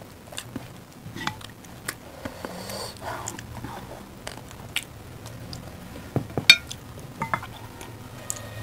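Eating sounds at a table: chewing and finger-licking, with scattered light clicks of a ladle and hands against a dal bowl and plates. One sharper knock comes about six and a half seconds in.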